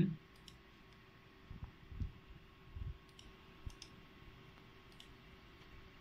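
Faint computer mouse clicks, a few irregularly spaced, with some soft low knocks, over a faint steady hum of running computer equipment.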